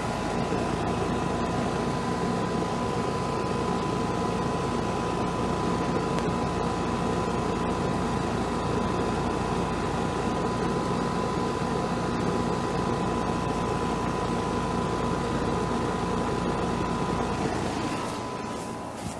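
Outdoor air-conditioner condenser unit running steadily: a constant mechanical hum with a steady whine above it. About eighteen seconds in, the low hum drops away and the sound gets quieter.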